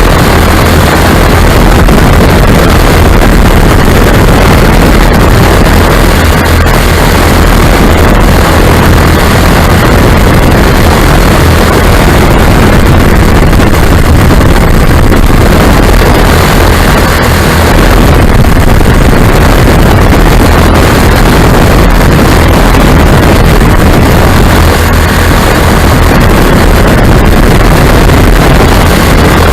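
Lazair ultralight's twin engines running steadily in flight, very loud, with wind buffeting the microphone.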